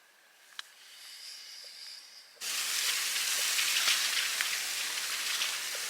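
Faint hiss with a single click, then about two and a half seconds in a sudden cut to steady rain falling, a dense crackling hiss.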